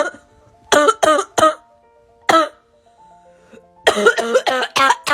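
A person coughing in short, harsh fits: three quick coughs about a second in, one more in the middle, then a rapid run of coughs near the end, over background music with long held notes.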